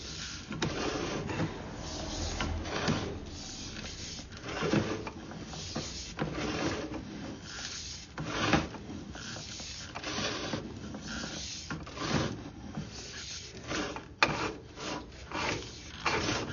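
Sewer inspection camera's push cable being pulled back out of the drain line and onto its reel: irregular rubbing and scraping with occasional clicks, one sharper click about 14 seconds in.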